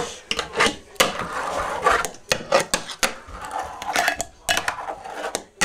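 Fingerboard rolling over wooden ramps and a wooden table, with sharp clacks as the deck pops and lands, then is caught.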